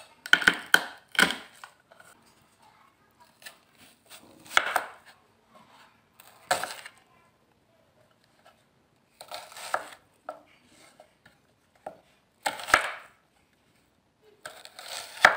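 Cleaver striking a wooden cutting board as garlic cloves are smashed with the flat of the blade and a shallot is sliced. The knocks come singly or in short clusters, spaced irregularly with pauses between.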